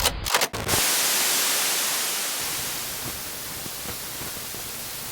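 A few sharp clicks, then a loud, even hiss of static that starts under a second in and slowly fades.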